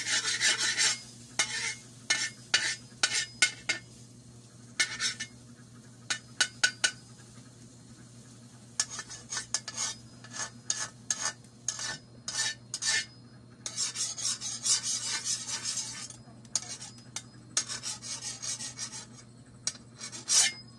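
A utensil scraping and clinking against kitchenware in irregular runs of sharp clicks and short scrapes, as in stirring.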